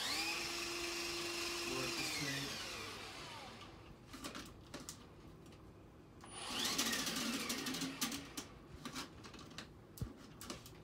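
Milwaukee M18 Fuel brushless drain snake's motor triggered twice. Each time the drum spins up with a quickly rising whine, holds a steady pitch for a second or two, then winds down with a falling pitch. Scattered ticks and clicks come between the runs, and a sharp knock near the end.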